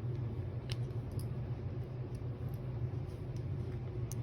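A steady low background hum, with two faint small clicks from phone parts or tools being handled on the workbench, one early and one near the end.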